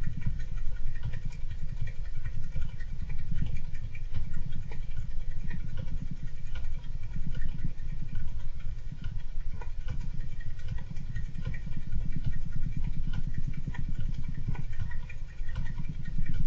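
A person snoring in a low, rattling rumble that eases off about every three seconds with each breath. Over it a golden hamster scratches and patters about in its enclosure, making scattered small clicks and ticks.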